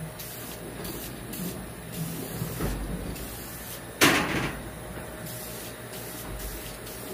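Aerosol can of Dupli-Color vinyl and fabric paint spraying in short bursts over plastic seat trim. A louder sudden noise, fading quickly, comes about four seconds in.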